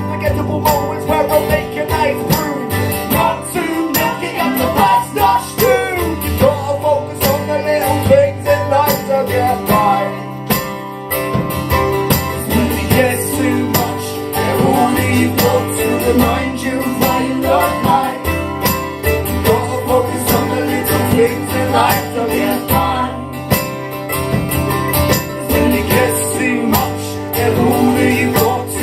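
Live performance of a song: guitar music with singing over it.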